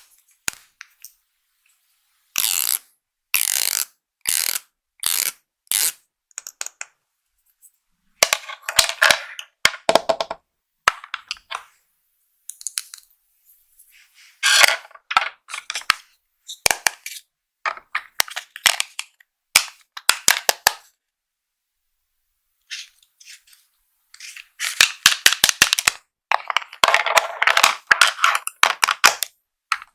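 Plastic makeup packaging being handled and opened: crisp clicks, taps and crackling in clusters, with stretches of dead silence between them.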